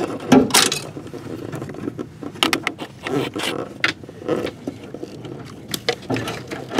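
Coat-hanger wire with cables taped to it being pulled through a hole in a car's firewall: irregular scraping and rustling with scattered clicks and knocks.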